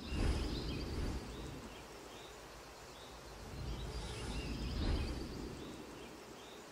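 Title-sequence sound effect: a noisy, rumbling whoosh that swells about a third of a second in and again about five seconds in, with faint high chirps through it.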